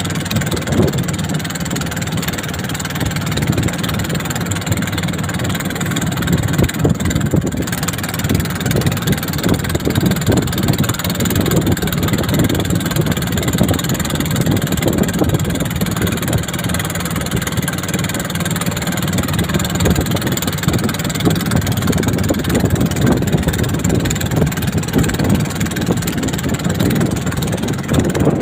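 An engine running steadily and loudly, with a rough, continuous noise and no change in pace.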